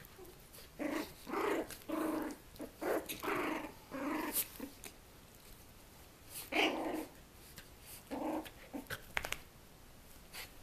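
Australian Terriers growling in play as a mother romps with her young puppies: a quick run of short growls in the first few seconds, then two more further on, with a few light clicks near the end.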